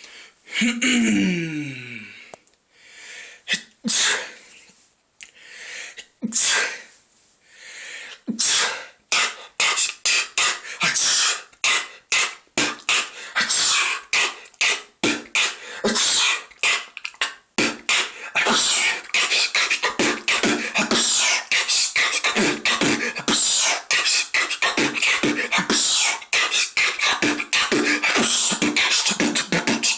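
Solo vocal beatboxing with sneeze sounds worked into the beat. It opens with a falling vocal glide and a few scattered mouth-made drum hits, then builds from about eight seconds in into a fast, dense beat.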